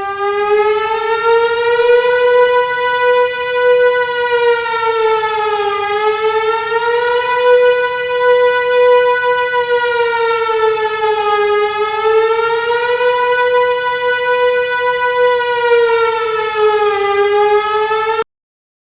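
Civil defense siren wailing, its pitch slowly rising and falling about once every five to six seconds, then cutting off abruptly near the end.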